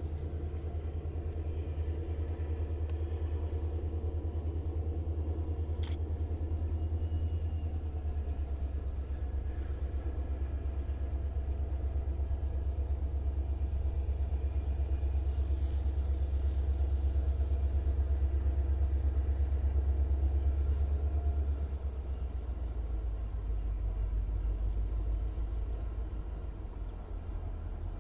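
Wind buffeting the microphone: a steady low rumble that swells and eases, with a few faint high chirps now and then.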